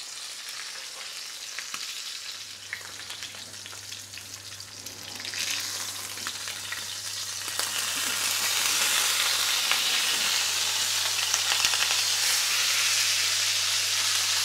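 Beef steak searing in hot ghee in a pan: a steady sizzle full of small crackles and spitting that grows noticeably louder about halfway through. The steak was washed before searing, which makes the fat spit more.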